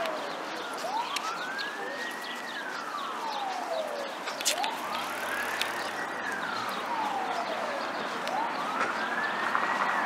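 Emergency vehicle siren wailing, a single tone slowly rising and falling about every three and a half seconds, over steady street noise.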